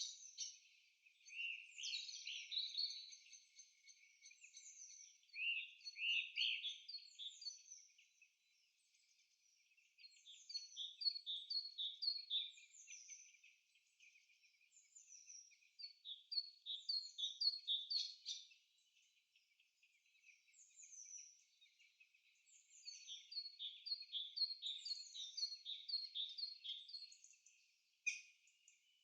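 Songbirds singing in a forest, several overlapping high-pitched songs made of quick runs of short down-slurred chirps, coming in bouts a few seconds long with brief lulls between them. There is no low sound at all beneath the birdsong.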